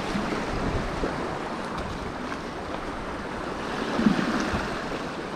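Small waves washing against the jetty rocks, a steady rushing wash, with wind buffeting the microphone.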